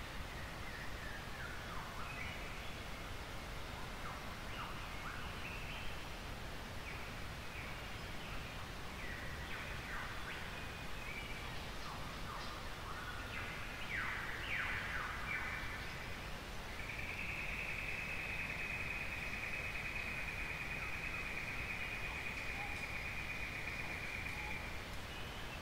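Dawn chorus of forest birds: scattered short chirps and falling whistles through the first half, then a steady high-pitched tone held for about eight seconds. A constant low hiss runs underneath.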